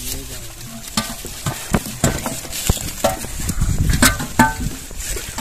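Hands sorting a heap of live, wriggling eel-like fish in a metal tray: wet slithering and squelching, broken by irregular clicks and knocks against the metal.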